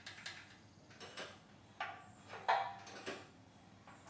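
Light metallic clicks and clacks, about five spread over four seconds with the loudest about two and a half seconds in, from hands working the exposed overhead-valve rocker arms of a Generac GP7500e engine while checking valve clearance.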